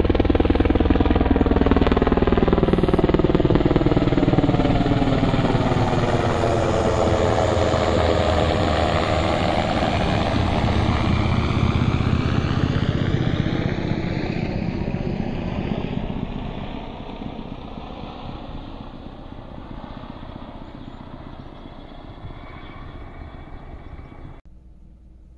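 Sikorsky UH-60 Black Hawk helicopter flying overhead, its rotors and turbine engines loud and steady. The tone sweeps down and back up as it passes. It then fades as it moves away, and cuts off suddenly near the end.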